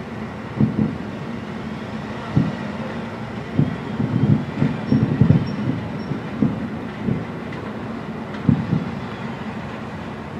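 Aerial firework shells bursting at a distance: a series of dull, low booms, several bunched closely together in the middle, over a steady background rumble.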